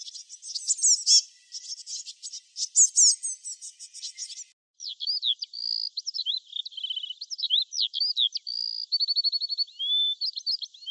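High-pitched animal chirps and squeaks in rapid series. About four and a half seconds in, the sound changes abruptly to a different run of squeaks and short sliding whistles.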